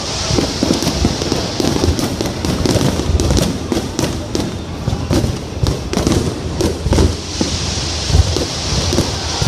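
Fireworks display going off continuously: a dense run of sharp bangs and deep booms over a steady crackling hiss.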